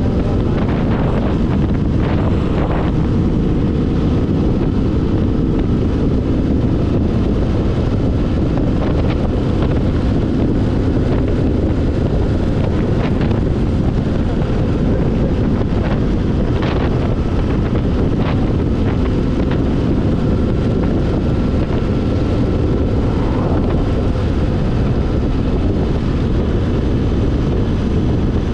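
Motorcycle riding noise: steady wind rush on the microphone mixed with the bike's engine and road noise at cruising speed.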